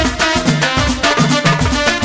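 Moroccan chaabi music: a steady, driving percussion beat under pitched instruments.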